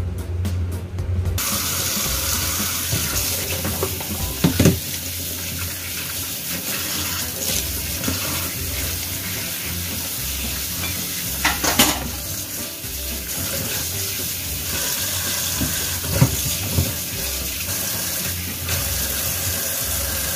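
Kitchen tap running into a stainless steel sink, splashing over chicken feet being rinsed by hand in a plastic colander. The water starts about a second in, and there are a few short knocks and clatters.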